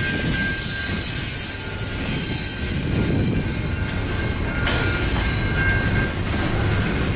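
Double-stack intermodal container well cars rolling past at a steady pace: a continuous steel-wheel rumble on the rails, with thin wheel squeal that comes and goes, fading shortly after the start and returning after about four and a half seconds.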